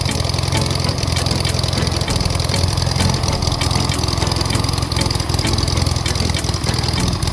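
Freshly rebuilt light-aircraft piston engine idling steadily at its first run, warming up with an even low beat.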